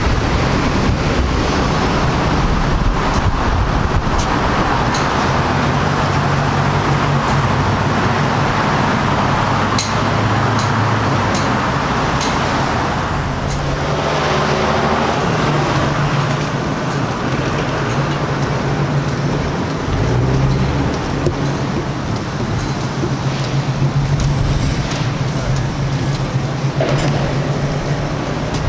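Road traffic noise: passing vehicles and steady engine hum.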